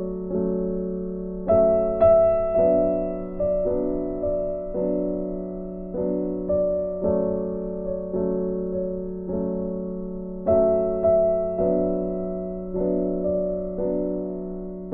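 Background piano music: slow notes, about two a second, each struck and fading away.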